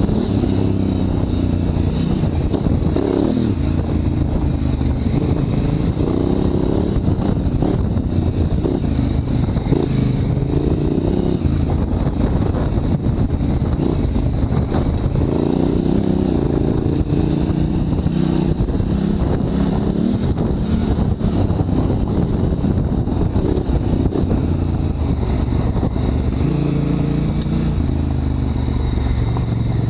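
Honda Africa Twin CRF1000L's parallel-twin engine running under way, its pitch rising and falling again and again as the bike accelerates and eases off.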